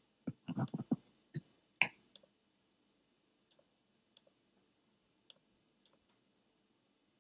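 Computer mouse clicks: a quick run of sharp clicks in the first two seconds, then a few faint, scattered clicks.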